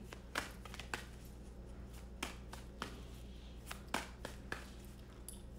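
Tarot cards being handled and drawn from the deck, heard as scattered light taps and clicks, a dozen or so at uneven intervals, over a faint steady low hum.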